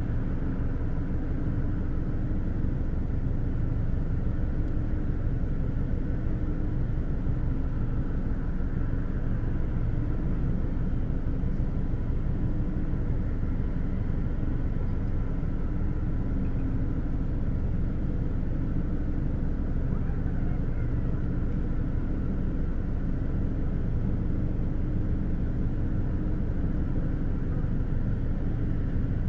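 Steady low rumble of ship engines, with faint steady hums running through it.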